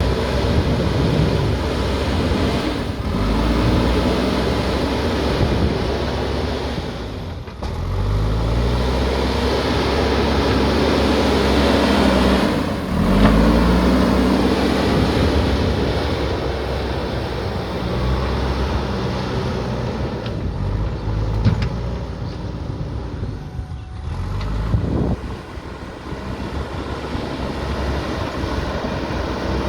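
JCB backhoe loader's diesel engine running under load, revving up and dropping back several times as the machine works, with a couple of sharp knocks in the second half.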